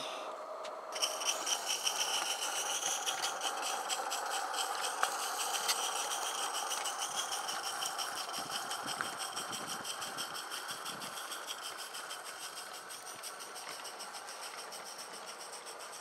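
Accucraft Lynton and Barnstaple 'Lew' live-steam garden locomotive chuffing as it starts off about a second in, with rapid, even exhaust beats. The beats quicken, then gradually fade as the engine draws its train away.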